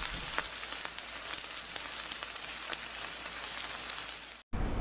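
Food sizzling in a pan over a high flame: a steady hiss full of small crackles and pops, which cuts off suddenly near the end.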